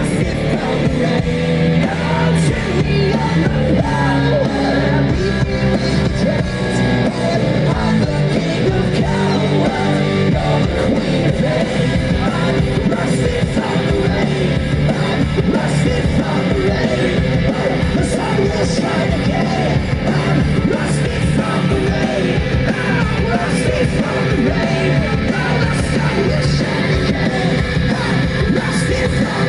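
Live rock band playing loudly, distorted guitars, bass and drums with shouted vocals, recorded from the crowd.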